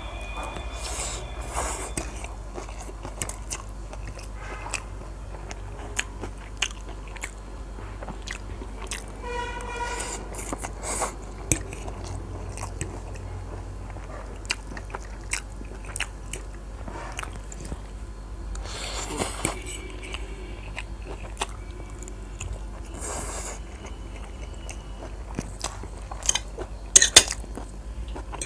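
A person eating street food close to the microphone: biting, crunching and chewing with wet mouth clicks and smacks, over a steady low hum. A brief pitched tone sounds about nine to ten seconds in.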